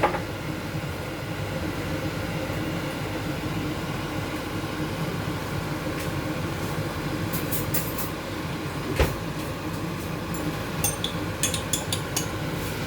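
Steady low rumble of a curry cooking on the stove, with sharp clinks of a utensil against the pot, a few about seven to nine seconds in and a cluster near the end.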